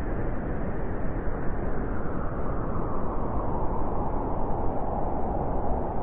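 Blizzard wind blowing steadily, a dense, low rush of noise with no distinct howling tone.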